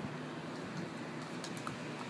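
Light, scattered clicking and scratching from Brittany puppies play-fighting, their paws and mouths on a plastic chair leg and concrete, over a steady low hum.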